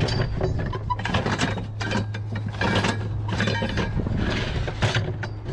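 Scrap metal being handled: a metal pipe and a curved sheet knocked and scraped against other scrap, with irregular clanks and rattles over a steady low hum.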